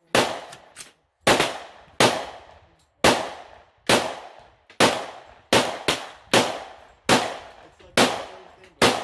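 AR-15 semi-automatic rifle firing about a dozen single shots at an uneven pace of roughly one a second, each crack trailing off in an echo.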